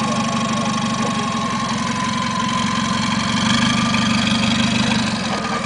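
Engine of a short-wheelbase Toyota Land Cruiser 70-series 4x4 running at low revs as it crawls up a rocky step off-road, getting a little louder about halfway through.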